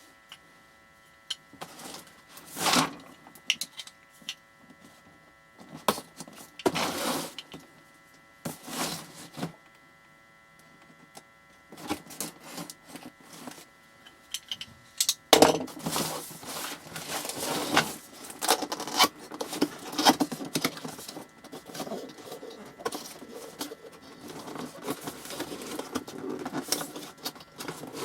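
A cardboard box and its packaging being opened and handled. There are a few separate scrapes and rustles at first, then near-continuous rustling and crinkling from about halfway in.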